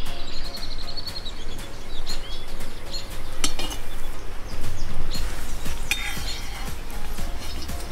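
Metal skimmer clinking and scraping against a cast-iron cauldron, with a few sharp clinks.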